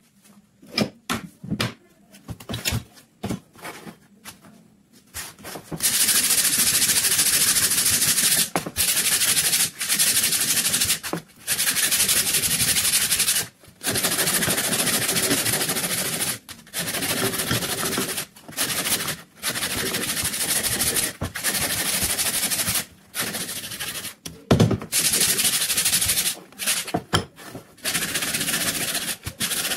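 Sandpaper on a sanding block worked hard over the wooden stock of a Yugoslav M48 Mauser rifle: a loud, harsh hiss in stretches of a few seconds broken by short abrupt gaps. It starts about six seconds in, after a few scattered light knocks.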